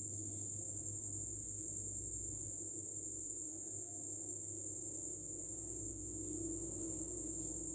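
A steady, high-pitched insect trill, of the kind crickets make, runs unbroken over a faint low hum.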